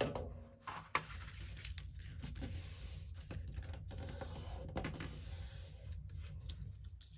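Paper and cardboard being handled: a steady rustling and rubbing with a few sharp clicks.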